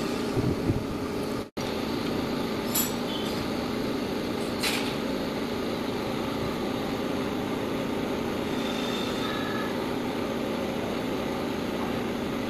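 Steady mechanical background rumble and hiss, with a few light metallic clicks from a long tool working the bolts of a motorcycle engine's water pump.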